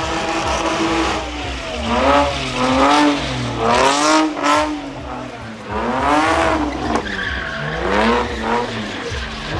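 BMW E30 drift car's engine revving up and down over and over as it slides in circles, its pitch rising and falling about every second, with the rear tyres skidding and squealing on brick pavers.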